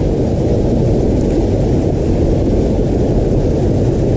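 Small creek waterfall pouring into a pool: a steady, loud, deep rush of water with no break.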